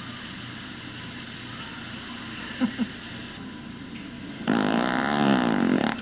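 Fart noises from a Pooter fart-sound machine: two short toots a little before midway, then a long, wavering fart lasting about a second and a half near the end.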